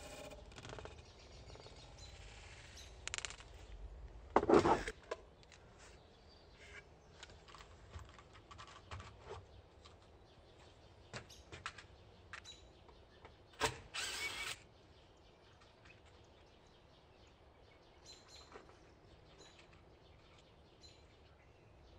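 Faint outdoor background with occasional bird chirps, broken by scattered knocks and clatters of wooden pieces being handled; the loudest clatter comes about four seconds in, another near the middle.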